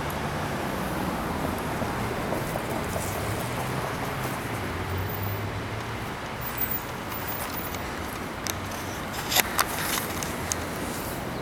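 Steady hum of road traffic, with a few short sharp clicks bunched together about three-quarters of the way through.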